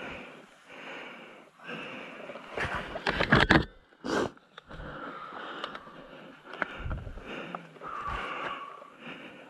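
A person breathing heavily and sniffing, with a loud burst of rustling and thumps about three seconds in.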